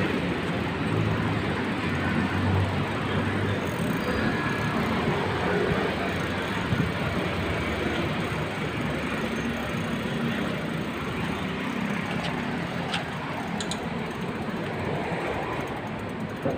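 Steady rumbling ride noise of a two-wheeler moving along paved streets, with passing traffic, and a few light clicks about twelve to fourteen seconds in.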